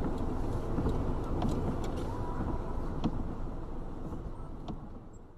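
Car road and engine noise picked up by a dashcam inside a moving car: a steady low rumble with a few faint ticks, fading away over the last second or so.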